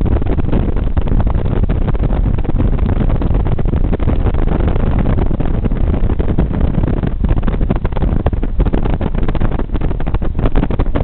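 Wind rushing and buffeting the microphone from inside a car moving at speed, over road and engine noise.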